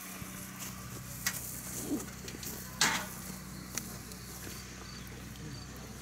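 A steady low hum with a few sharp knocks, the loudest about three seconds in.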